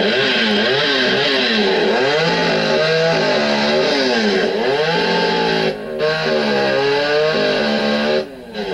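Gas chainsaw running at high revs while cutting a log, its pitch repeatedly sagging and climbing as the chain bites into the wood and frees up. The engine drops off briefly about two-thirds through and again near the end.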